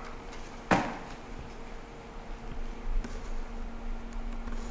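A single sharp click about three-quarters of a second in, then a faint steady low hum over room tone.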